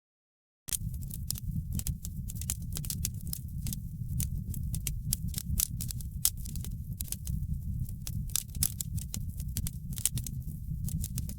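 Fire in a fireplace crackling with many quick, irregular pops over a steady low rumble of flame. The audio cuts out briefly at the very start.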